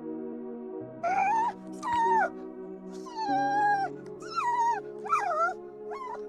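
A dog whining in a string of about six short, high whimpers that waver and fall in pitch, one of them longer, over steady background music.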